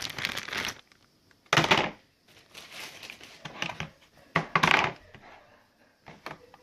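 Packaging being handled, crinkling and rustling in four short bursts.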